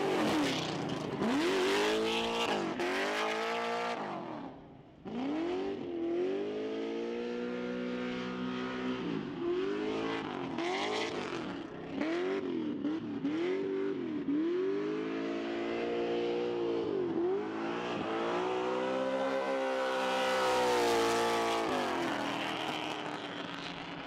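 The 6.0-litre LS2 V8 in a 1989 Nissan 240SX (S13), breathing through long-tube headers, revs up and falls back over and over while the car drifts, with tire screech over it. The engine's pitch swings up and down about every second, and briefly drops away about four and a half seconds in.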